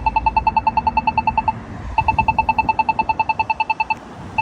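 Polara iNS accessible pedestrian signal push button sounding its rapid ticking tone, about ten short beeps a second. The beeps come in runs of one and a half to two seconds, with brief breaks about one and a half seconds in and again near the end.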